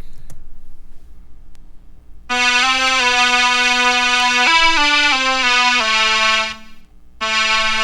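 A software keyboard instrument plays back a MIDI take recorded from a USB keyboard controller: held, bright-toned notes that change pitch a few times. The notes start about two seconds in, break off briefly near the end, then start again.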